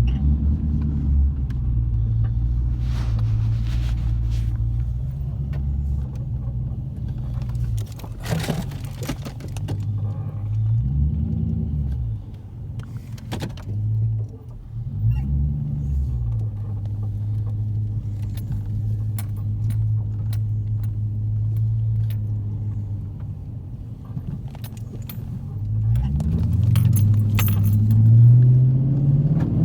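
Dodge Challenger R/T's V8 running as the car is driven, heard from inside the cabin, with scattered clicks and rattles. The engine revs up and down twice midway and climbs in pitch near the end as the car accelerates. The rattles are the noise the owner hears over bumps, mostly from the left side.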